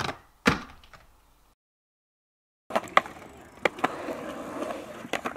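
Two sharp knocks, then a second of dead silence, then a skateboard rolling on a concrete bowl, its wheels running steadily, with several sharp clacks of the board.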